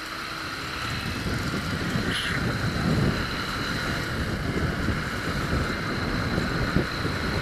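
Motorcycle underway, its engine running steadily under wind noise on the microphone.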